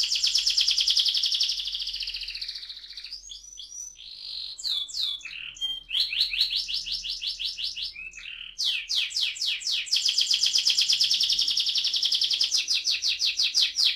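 Yellow domestic canary singing a rolling song: long trills of rapidly repeated high notes, about a dozen a second, broken for a few seconds by varied chirps and warbles, then rolling again at length.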